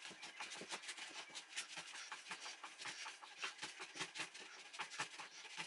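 Faint, irregular small clicks and scrapes of a wooden IKEA Lack table leg being twisted by hand onto its screw against the tabletop, being tightened.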